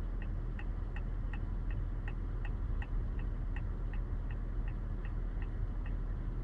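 Car turn-signal indicator ticking evenly, about 2.7 ticks a second, over the steady low hum of the engine idling.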